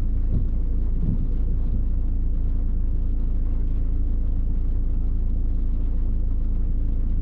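Steady low rumble and hum of a stationary car, heard from inside the cabin, with a couple of soft knocks in the first second or so.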